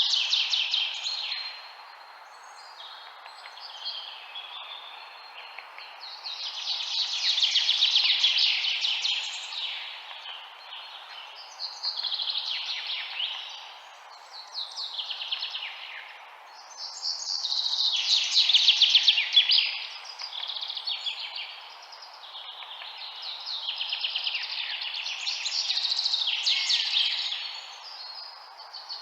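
Birds chirping in dense rapid bouts of a few seconds each, rising and falling, with short lulls between, over a steady background hiss.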